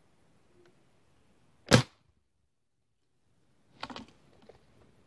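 A single sharp shot from a Jade 5.5 mm spring-piston air rifle with a weak mainspring, a little under two seconds in. Some two seconds later come scattered rustles and clicks.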